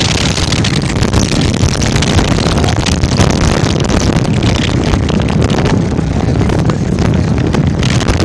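Motorbike engine running steadily while riding, heavily overlaid by wind buffeting the phone's microphone.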